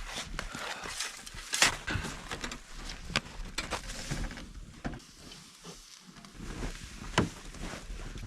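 Irregular rustling and handling noise, with a few sharp knocks about one and a half, three and seven seconds in.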